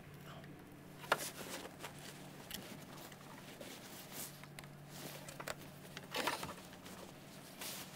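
Faint clicks and clinks of bolts and hand tools as the thermostat housing on a Mercedes M120 V12 is unbolted by hand, with one sharper click about a second in and a small flurry near six seconds, over a low steady hum.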